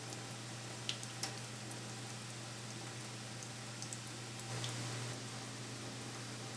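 A faint, steady trickle of a thin stream of water running from a faucet into a stainless steel sink, with a few small ticks, over a low steady hum.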